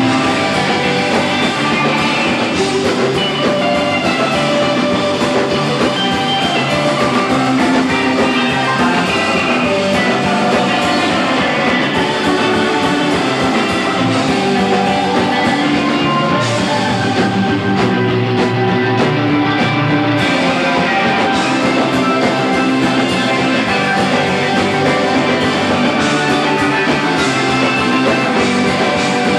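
Live instrumental surf rock band playing: electric guitars, drum kit and keyboard, loud and continuous.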